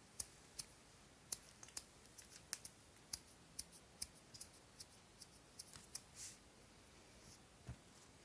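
A kitten's claws clicking on a laminate floor as it walks and turns: a quiet, irregular run of sharp little clicks, with one soft thump near the end.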